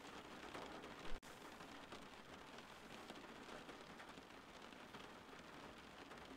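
Faint, steady rain noise with scattered drips. A short click and momentary dropout about a second in.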